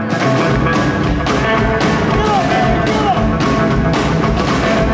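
Rockabilly band playing live: a hollow-body electric guitar riff with bent notes, joined about half a second in by drums and a deep low end keeping a steady beat.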